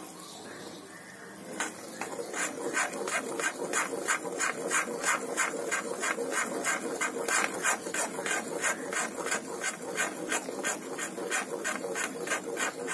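Steel spatula scraping back and forth across a kadai, about three strokes a second, stirring semolina and gram flour as they roast in bubbling ghee for sooji halwa, with a steady sizzle underneath. The strokes start about a second and a half in.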